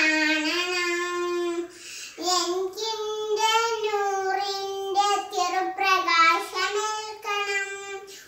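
A young girl singing a Malayalam Islamic devotional song solo and unaccompanied, holding long, wavering notes, with a breath pause about two seconds in.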